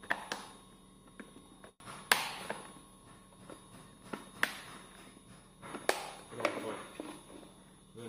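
Plastic cover of a pedestal fan's motor housing being handled and pressed onto the motor so its locking tabs snap into place: a handful of sharp clicks and knocks spread over several seconds, the loudest about two seconds in.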